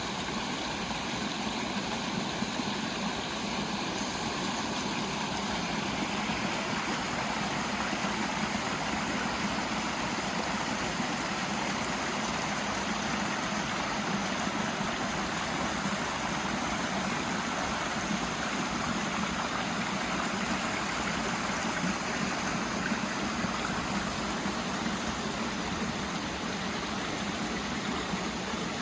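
Valley stream flowing, a steady, even rush of water.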